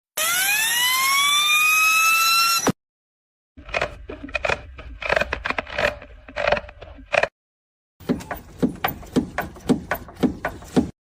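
Abnormal noises from car parts in three short bursts: a loud whine that rises in pitch and then holds steady, then irregular short noises, then a quick run of knocks, about three a second.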